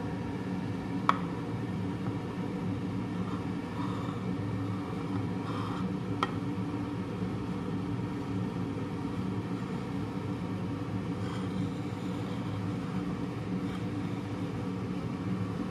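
Steady low machine-like hum of background noise, with two sharp clicks about five seconds apart.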